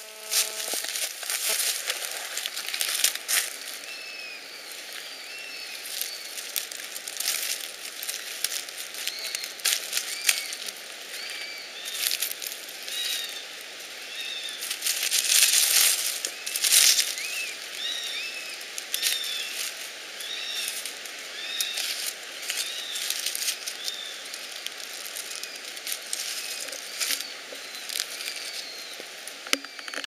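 Dry leaf litter and twigs crackling and rustling as someone moves through the forest floor, loudest about halfway through. A bird repeats short chirps, about one a second, through most of it.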